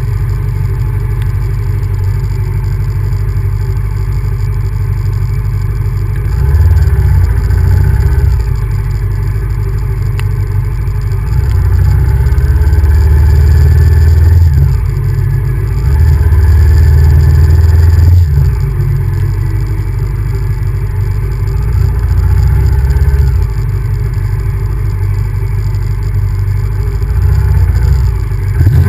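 Honda VTR1000F's 90-degree V-twin engine running while riding, getting louder and quieter several times as the throttle is opened and closed.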